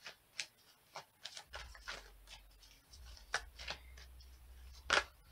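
Tarot cards being handled and drawn from the deck: a series of short, soft card slaps and rustles, the loudest about five seconds in.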